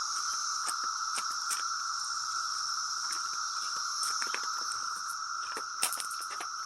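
Chorus of many cicadas, a steady unbroken drone, with a few faint clicks over it.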